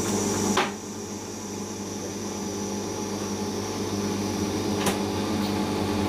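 Siemens iQ WIQ1430 front-loading washing machine spinning its drum during the cotton programme's final spin, a steady mechanical hum. A short knock about half a second in, and a faint click near the end.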